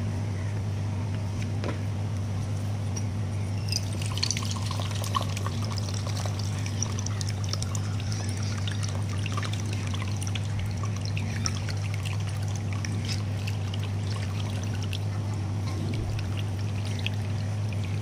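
Coconut water trickling from holes pierced in a coconut into a stainless-steel tumbler, splashing and dribbling; the trickle starts about four seconds in. A steady low hum runs underneath.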